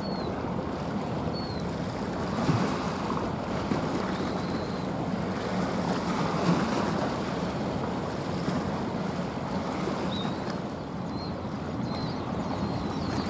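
Wind and water noise with the low, steady drone of a passing small coastal cargo ship's diesel engine. A small bird chirps now and then, more often near the end.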